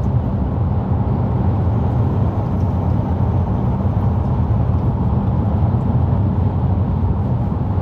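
Steady road and engine noise inside the cabin of a car driving along, a constant low rumble with no change in pitch.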